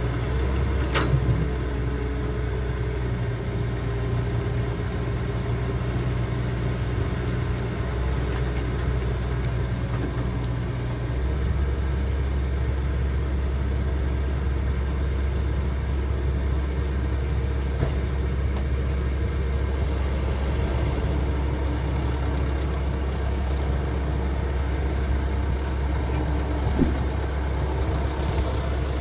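Diesel engines of a crawler excavator and a waiting dump truck running steadily, the engine note shifting lower about eleven seconds in, with a couple of short knocks, one about a second in and one near the end.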